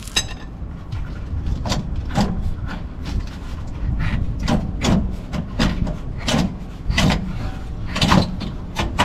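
Steel rear coil spring of a Toyota LandCruiser 200 Series, fitted with an airbag inside, being turned and worked into its spring seat by hand: a string of irregular knocks and clunks, about a dozen, over a steady low rumble.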